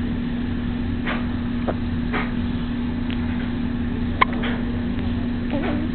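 Steady hum of a crib's built-in vibration unit, with a baby's hiccups about once a second over it, one sharper than the rest about four seconds in.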